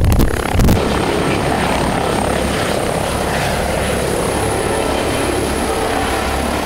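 Airbus H145 twin-engine helicopter at close range: a gusty rush of rotor downwash in the first second, then steady rotor and turbine noise with a thin high whine.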